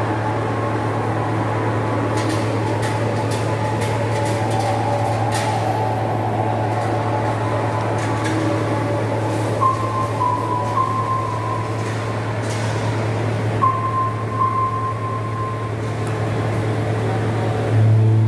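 Steady low machine hum with background noise, faint scattered clicks and two brief higher tones; the hum steps up louder just before the end.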